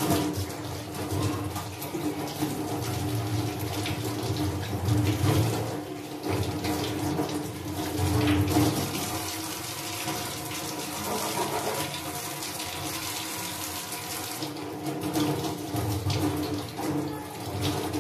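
Kitchen tap running full into a stainless-steel sink, the stream splashing over a fish held under it as it is rinsed and cleaned. The water comes on suddenly and then runs steadily.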